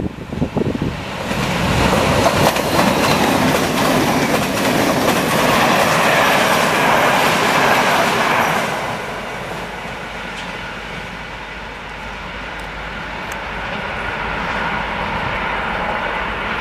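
MÁV Class 480 electric locomotive and its InterCity coaches passing at speed, with the rushing noise of wheels on rail. The sound swells loud within the first second or two, holds for about seven seconds, then drops to a lower, steadier level as the train goes away.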